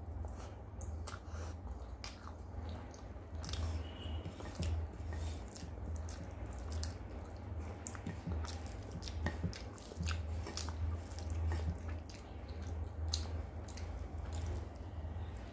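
Close-miked chewing and lip smacks of a person eating rice and curry by hand, with wet squishing of fingers mixing rice on a plate. The sound is many short, irregular clicks over a steady low hum.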